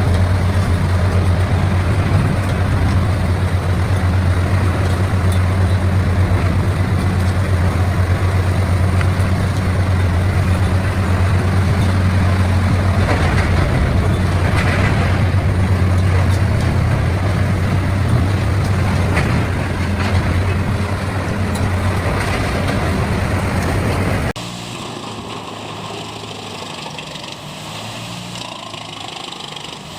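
CBI 6400 CT horizontal grinder running: a loud, steady, deep drone with a rough, noisy layer above it. About 24 seconds in, the sound cuts abruptly to a quieter machine engine running steadily.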